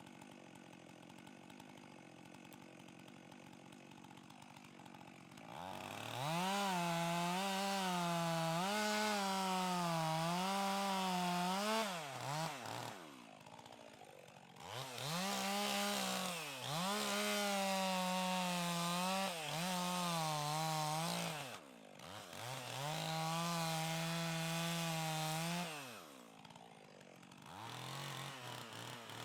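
Chainsaw cutting pine at full throttle in three long runs, its pitch dipping and recovering under load. It drops back between runs and revs briefly near the end, after a few seconds of only a faint low hum at the start.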